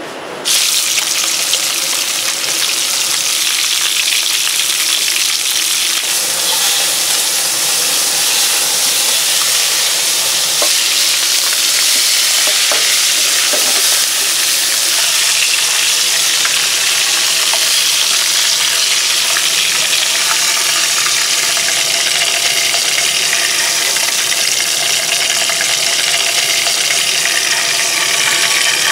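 Wild boar bone-in ribs sizzling in oil in a frying pan: a steady, loud frying hiss that comes in suddenly about half a second in.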